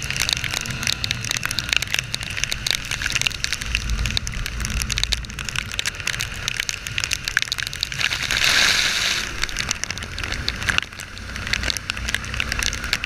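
Heavy rain pelting an action camera on a moving motorcycle: dense, irregular drop ticks over a low rumble of wind and engine. About eight seconds in, a louder hiss of spray swells for a second or so.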